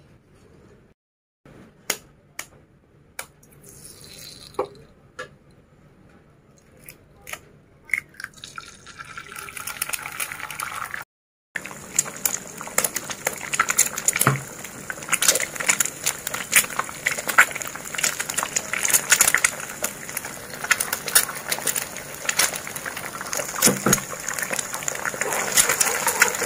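A few sharp taps, then eggs sizzling and spattering in hot oil in a nonstick wok: the hiss rises from about eight seconds in and turns to dense crackling as the eggs fry. Near the end a plastic spatula stirs them as they are scrambled.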